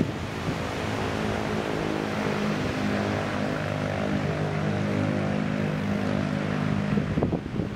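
A steady motor drone holding one even pitch, over a hiss of wind, fading out about seven seconds in.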